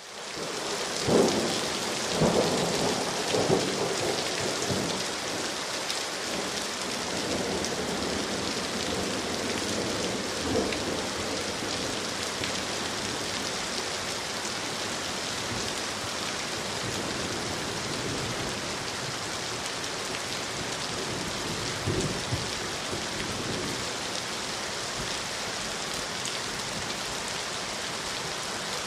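Steady rain falling at night, an even hiss of rain on leaves and surfaces. A few short, louder thuds stand out in the first few seconds and once more past the middle.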